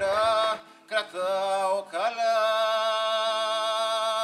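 A man singing: two short sung phrases, then one long held note near the end.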